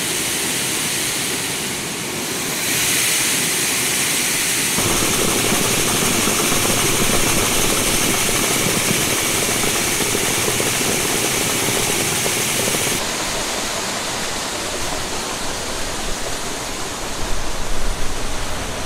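Grain-handling machinery running while a truck is unloaded: a steady rushing hiss with a low running hum under it. The sound changes abruptly about three, five and thirteen seconds in.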